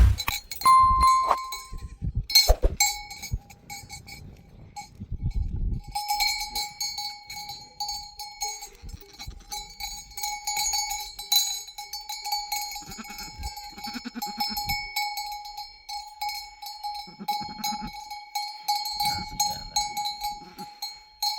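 Livestock bells on a herd of goats and sheep clanking and ringing continuously as the animals move, with a few short bleats from the herd in the second half.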